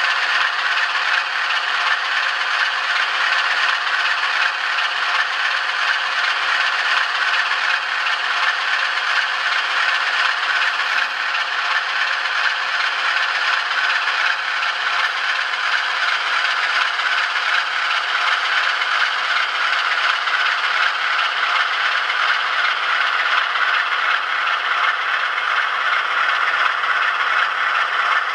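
Sound decoder in an N gauge Graham Farish Class 47 model locomotive playing a steady, rattly Class 47 diesel engine sound through its tiny speaker, thin and without bass, while the model runs slowly.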